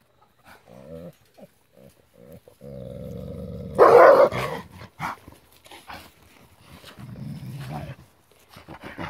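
Gray wolves growling at each other. A low growl breaks into a loud snarl about four seconds in, and there is another low growl near the end.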